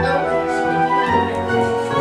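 Orchestral background music with held notes that change about a second in.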